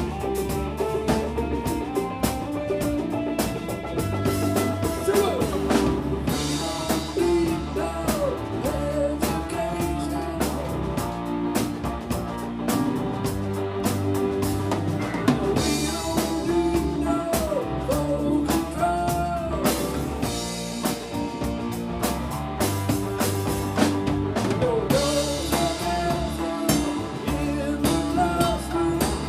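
Live funk band playing with drum kit, bass and a lead line of sliding, bending notes over a steady, busy beat.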